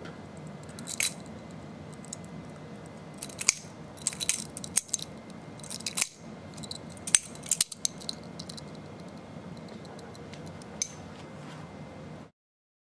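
Butterfly knife being flipped: scattered metallic clicks and clacks of the handles swinging around the tang, some in quick clusters. The sound cuts out to dead silence near the end.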